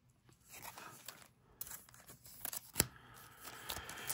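Quiet handling of trading cards and booster-pack packaging: soft rustles and scrapes with small ticks, and one sharp click about two-thirds of the way through.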